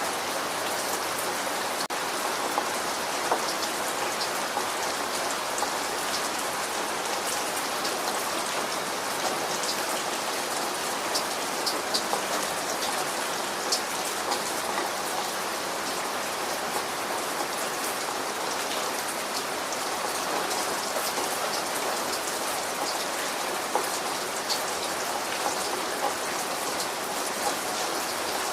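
Steady rain falling on a surface, an even hiss with scattered individual drops ticking and pattering close by.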